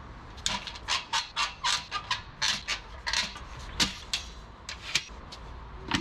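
A portable folding workbench's metal frame being unfolded and set up: a quick run of about a dozen short clacks, about four a second, then two single knocks.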